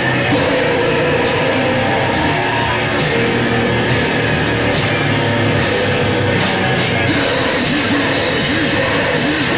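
Heavy metal band playing a lo-fi demo recording: loud distorted electric guitars, bass and drums, with cymbal crashes about once a second.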